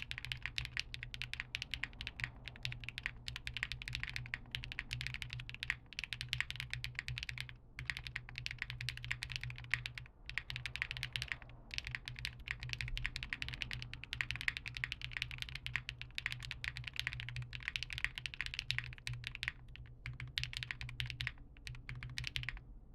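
Steady, fast typing on a Space65 mechanical keyboard with KFA Pink Robin switches, an FR4 plate with plate foam, and PBTfans Resonance keycaps, picked up by a phone microphone. There are a few brief pauses, and the typing stops near the end.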